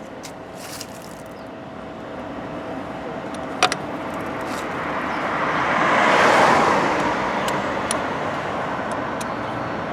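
Road traffic: a vehicle passing by, growing louder to a peak about six seconds in and then fading. A single sharp click a little before four seconds in.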